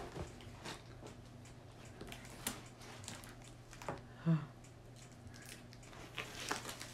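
Faint, scattered rustling and crinkling of tissue paper and cardboard as a gift box is opened and its wrapped contents are handled, with a brief low hum about four seconds in.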